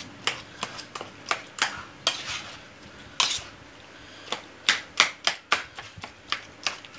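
A metal spoon clinking and scraping against a stainless steel bowl as roasted eggplant, tomato and pepper are stirred and mashed together: irregular knocks, a few a second. The knocks go quieter for a while in the middle, broken by one longer scrape.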